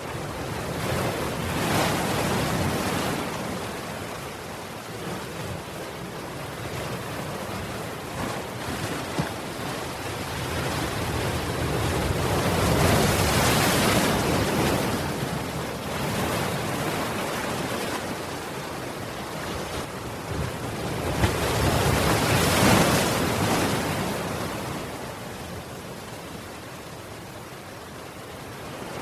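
Ocean surf: waves breaking and washing up, a rushing noise that swells and fades, with three big surges about ten seconds apart.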